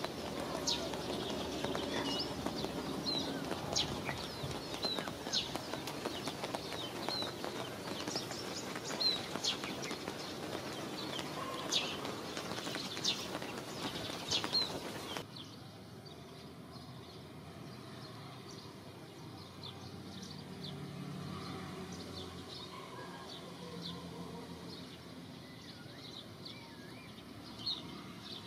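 Steady rain falling on stone and foliage, with scattered short high chirps over it. About halfway through it cuts suddenly to much quieter outdoor ambience with only faint, sparse chirps.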